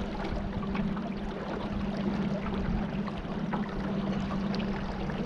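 Small boat's motor running steadily with a constant hum, over the rush of water moving past the hull.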